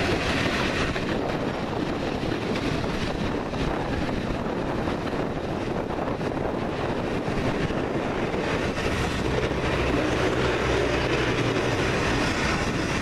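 Steam-hauled passenger coach rolling along the track, a steady running noise of wheels on rails with faint clicks, heard from the coach window. Low steady tones come in about two-thirds of the way through.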